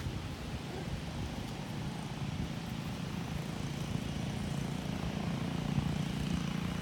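Low, steady engine drone that grows louder about halfway through.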